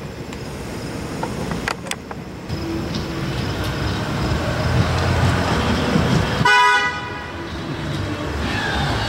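A car on the street grows louder as it approaches and gives one short honk of its horn about six and a half seconds in.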